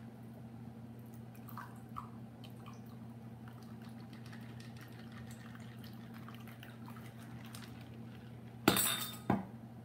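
A shaken daiquiri poured from a metal cocktail shaker into a rocks glass: a faint trickle with a few light clinks, over a low steady hum. Near the end come two sharp knocks about half a second apart, the loudest sounds.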